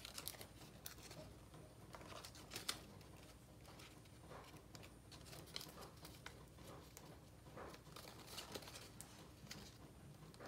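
Faint rustling and creasing of paper folded by hand, in scattered soft ticks, with one slightly louder tick about two and a half seconds in.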